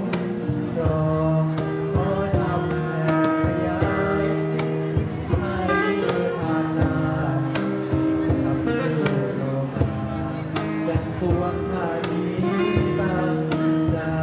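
A small live acoustic band playing a song: acoustic guitar strummed over a steady cajon beat.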